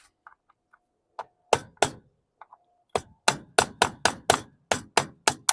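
Hammer tapping a rusted axle to drive it out of a lawn mower's rear wheel. Two blows come about a second and a half in, then a quick run of about nine strikes, three or four a second, each with a short ring.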